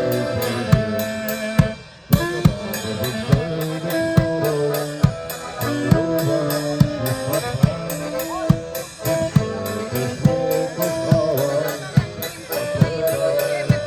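Live band playing an instrumental passage: a drum kit keeps a steady beat with snare and bass drum under held melody notes.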